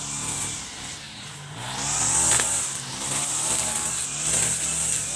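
Petrol brush cutter (grass trimmer) running as it cuts grass: the small engine drops back about a second in and revs up again about two seconds in, with a hiss from the spinning cutter.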